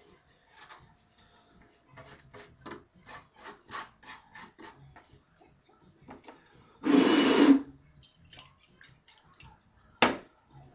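A metal knife scraping and tapping against a plate and the neck of a glass bottle, a run of light clicks and scrapes as sodium pieces are pushed in. About seven seconds in there is a loud rushing burst lasting under a second, followed near the end by two sharp knocks.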